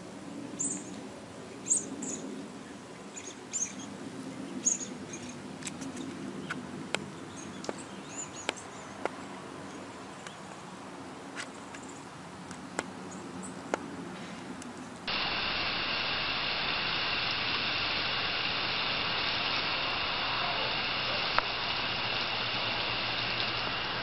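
Birds chirping in the background with scattered light clicks. About 15 seconds in, this switches suddenly to a louder steady hiss of a garden hose spraying water.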